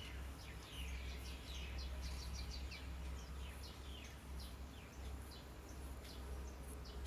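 Faint bird chirps: many short, quick, downward-sliding notes repeated over and over, over a steady low hum.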